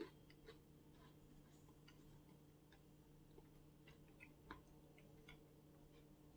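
Near silence with faint, irregular mouth clicks of someone chewing a chocolate cream cracker, over a steady low hum.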